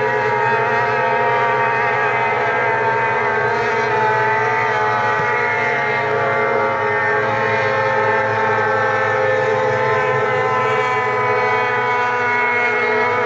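Racing hydroplane boat engines running flat out on a river, several boats together, heard as a steady, high droning whine that barely changes in pitch.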